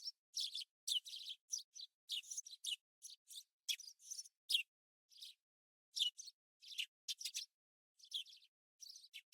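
Small birds chirping in quick, short, high-pitched calls that come in clusters with brief pauses.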